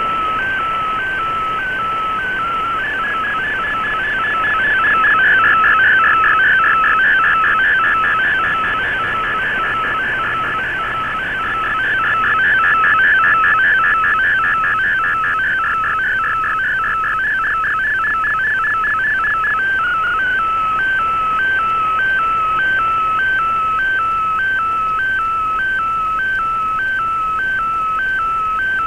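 Digital picture transmission in Fldigi's MFSK image mode, received over a shortwave radio with hiss behind it. It is a warbling tone that steps evenly back and forth between two pitches. From about three seconds in until about two-thirds through, it turns busier and louder, then settles back to the plain two-pitch stepping.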